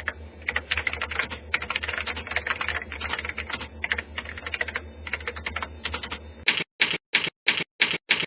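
Keyboard typing sound effect: a quick, irregular run of key clicks. About six and a half seconds in it changes to six louder, sharper keystrokes evenly spaced about a third of a second apart.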